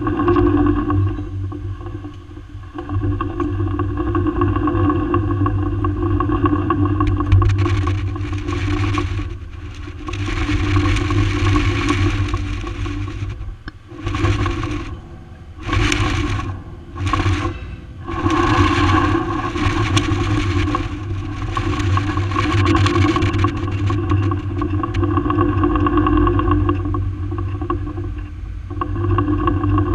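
Machinery running with a steady hum, overlaid by loud hissing surges that come and go; it starts suddenly.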